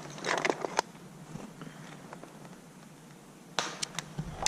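Two short clusters of sharp clicks and crackles, one just after the start and another near the end, over a low steady hum.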